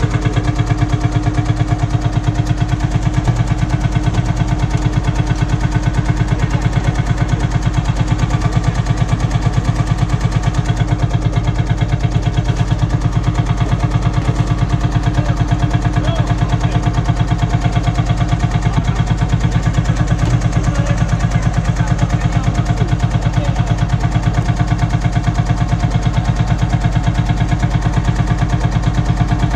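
Lanz Bulldog tractor's single-cylinder hot-bulb two-stroke engine idling with a steady, even chug of firing strokes.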